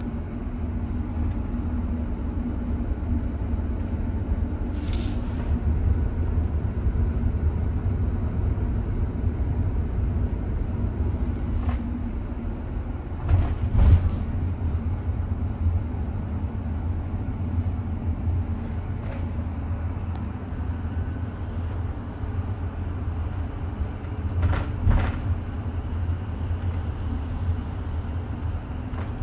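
Steady low rumble of a bus riding along, heard from inside the cabin, with a few brief knocks or rattles; the loudest comes about halfway through and another near the end.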